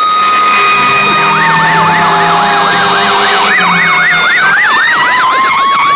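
Fire engine sirens: a slow wail and a fast yelp sounding together, the yelp starting about a second in, with a second wail slowly rising over it.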